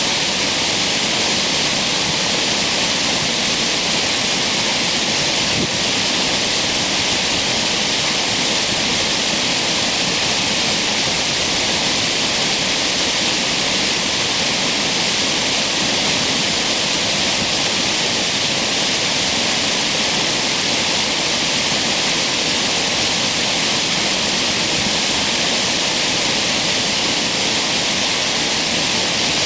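A creek's waterfall heard from a bridge above: a loud, steady rush of falling water with no let-up.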